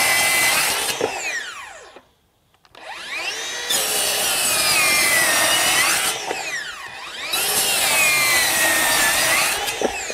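Ryobi One+ HP 18V brushless 7-1/4-inch circular saw cutting through LVL on a 9 amp-hour battery, which keeps it pushing well. Its blade whine sags in pitch under load through three stretches of cutting. The motor spins down and back up twice between them, falling quiet briefly about two seconds in, and spins down again at the end.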